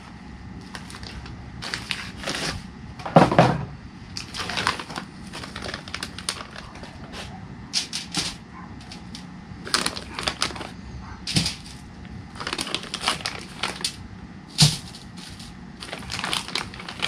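Vacuum-sealed plastic bag of frozen trout being opened and handled: irregular crinkling and rustling of plastic, with a louder burst about three seconds in and a few sharp knocks later.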